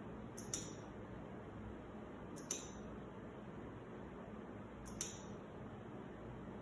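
Momentary push-button switch on a lighting control box being pressed three times, about two and a half seconds apart, each press a short sharp click, stepping the light pattern on. A faint steady hum lies underneath.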